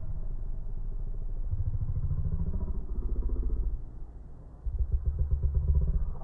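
A small motor vehicle engine, most likely a motorcycle, revving up twice with a drop in between.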